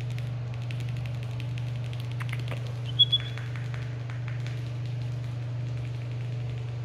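Steady low electrical hum, with scattered light clicks and two short, high-pitched chirps about three seconds in.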